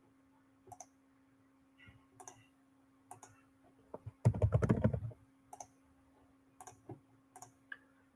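Computer keyboard keystrokes and mouse clicks, scattered and a few at a time, with a louder short burst of noise a little after four seconds in. A faint steady hum runs underneath.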